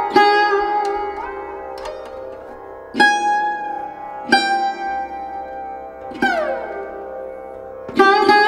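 Background music: slow plucked string notes, some bent in pitch, over a steady drone, with a long falling slide about six seconds in.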